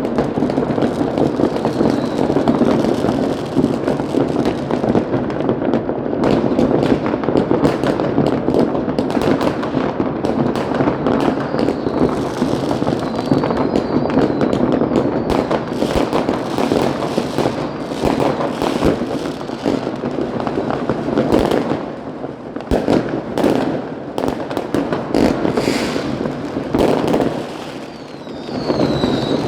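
Many fireworks and firecrackers going off without a break: a dense, continuous crackle of overlapping bangs, with a few thin whistles rising above it and the din easing briefly twice near the end.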